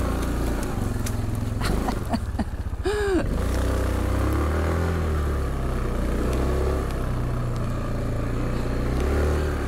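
Yamaha Kodiak 450 ATV's single-cylinder four-stroke engine running under load as it works its way out of deep snow. Its pitch rises and falls with the throttle, with a quick rev about three seconds in and a few short knocks just before it.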